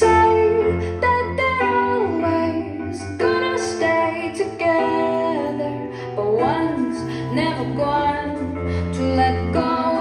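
Background music: a song with a female voice singing over instruments and a steady bass line.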